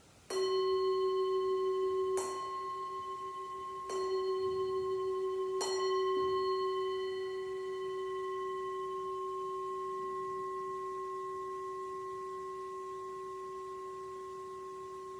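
Hand-held metal singing bowl struck with a mallet four times, about two seconds apart, each strike leaving a long, steady ring that fades slowly. It sounds to close Shavasana at the end of a yoga class.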